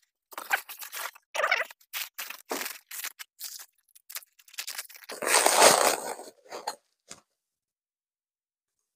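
Rustling and crinkling of bubble wrap and packing paper as wrapped steel armour pieces are lifted from a cardboard box and unwrapped: a string of short rustles, with one longer, louder crinkle about five seconds in, stopping about seven seconds in.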